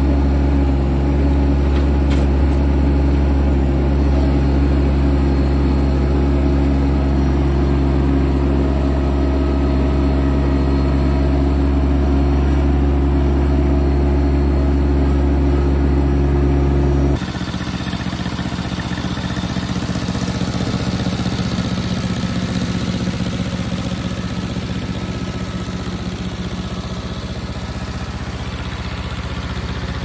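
A working machine's engine running steadily. About 17 seconds in, the sound changes abruptly to a different engine note with a fast, even pulsing.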